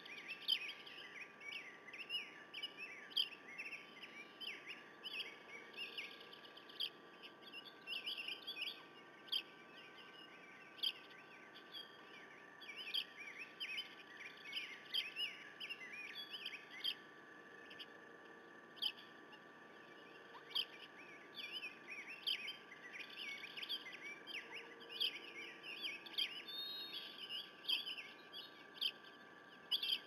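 Small birds chirping and singing in many short overlapping calls, with a faint steady hum underneath.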